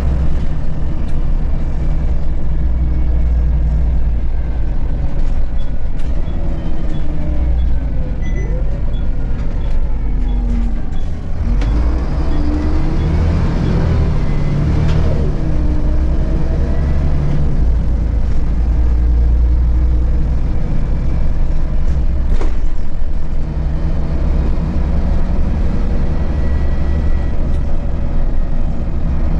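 Volvo B7RLE bus's rear-mounted six-cylinder diesel engine and drivetrain heard from inside the cabin while the bus drives, a steady low rumble. About eleven seconds in the sound dips briefly, then rising and falling whines follow for a few seconds; a single knock comes about twenty-two seconds in.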